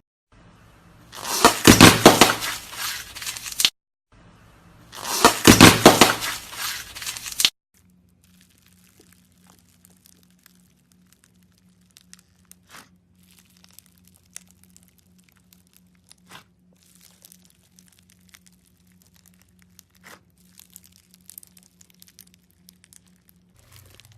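Slime being worked by hand: two loud spells of dense crackling and popping, each a couple of seconds long, the first about a second in and the second about five seconds in. Then faint, scattered pops and crackles over a low steady hum.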